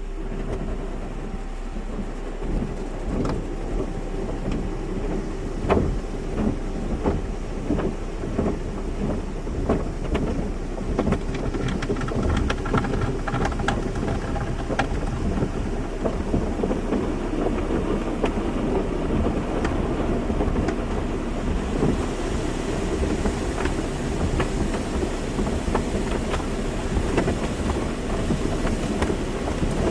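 Automatic car wash: water spray splashing and drumming irregularly on a car, over a steady hum of machinery. The spray turns brighter and hissier about 22 seconds in.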